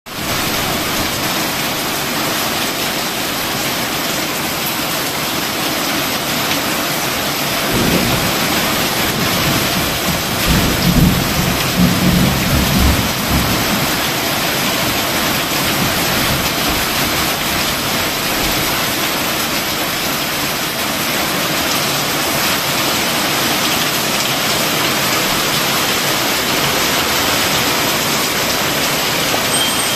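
Torrential rain falling steadily in a dense, even hiss. A low thunder rumble comes about eight seconds in, followed by a louder rumble lasting about three seconds around the middle.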